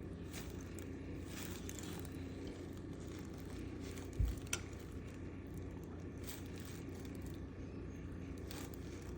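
Steady low hum with faint scratches and rustles, and one dull thump about four seconds in. No bird calls stand out.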